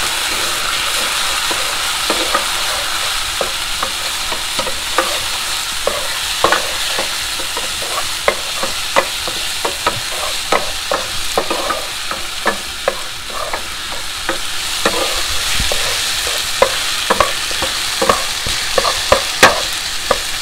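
Onion, garlic and tomato sauce sizzling steadily in a frying pan, with white balsamic vinegar just added. A utensil stirs the sauce, clicking and scraping against the pan at irregular moments, more often in the second half.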